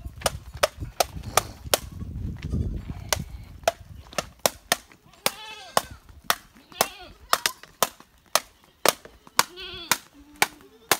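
Goats and young kids bleating several times, most of them in the second half, over a running train of sharp clicks at about three a second.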